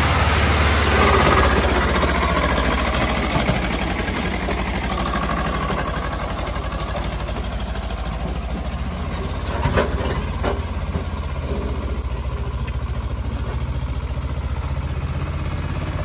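Swaraj 733 tractor's diesel engine working under load as it hauls a heavily loaded paddy trailer up onto the road: a steady low drone, loudest in the first couple of seconds. A couple of short knocks sound about ten seconds in.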